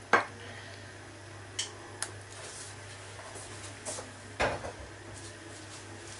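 Kitchen utensils and dishes being handled: a sharp clink as the sauce ladle knocks against the baking dish at the start, then a few light clicks and a heavier knock with a short rattle about four and a half seconds in. A faint steady low hum runs underneath.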